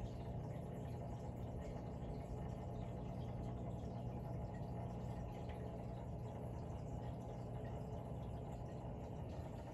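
Steady low hum of a saltwater aquarium's water-circulation pump, with a faint trickle of moving water.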